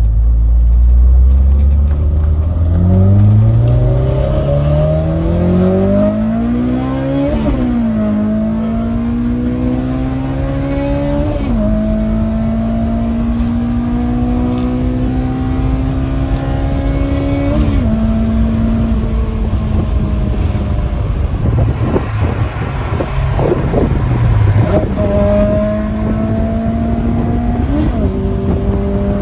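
Honda S2000's F20C four-cylinder engine accelerating through the gears. Its pitch climbs, then drops sharply at each upshift, with about four shifts. The car is running properly again after its no-start was cured with a new fuel pump.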